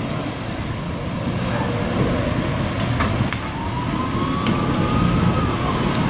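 Jet ski engine running hard with the rush of water as the craft circles. From about three seconds in, a whining tone slowly rises and then falls away.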